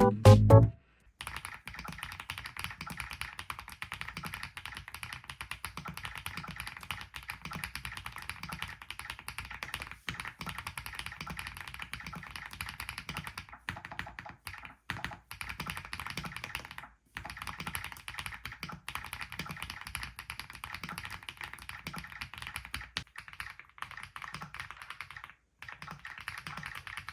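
Rainy mechanical keyboard being typed on in a typing test, with fast, continuous key clacks and a few short pauses. Background music ends about a second in.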